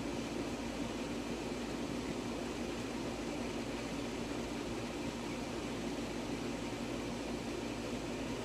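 Steady, even rushing noise with a low hum, unchanging, with no splashes or knocks standing out.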